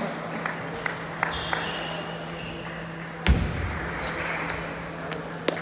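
Table tennis ball clicking sharply off paddles and the table during a serve and rally, the strokes coming irregularly. A low thump about three seconds in is the loudest sound. A steady low hum runs underneath.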